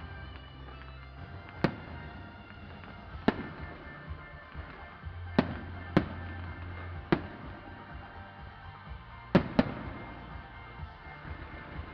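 Fireworks shells bursting, about seven sharp bangs at uneven intervals, two of them in quick pairs, over steady electronic dance music.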